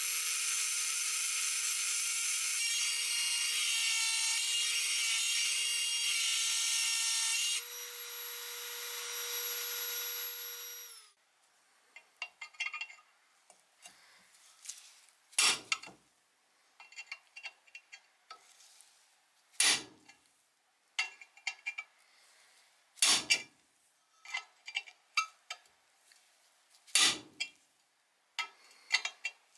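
High-speed rotary tool with an abrasive grinding stone running steadily as it grinds rust off the steel inside an old coal iron, its whine stepping slightly higher about halfway through before it stops. Then a hand-held metal pick scratches rust from around the coil spring, with small scrapes and four louder sharp scrapes a few seconds apart.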